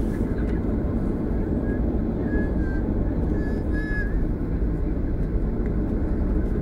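Jet airliner's engines and the rumble of its wheels on the runway, heard inside the cabin as the plane rolls along: a steady, even roar with a deep low rumble.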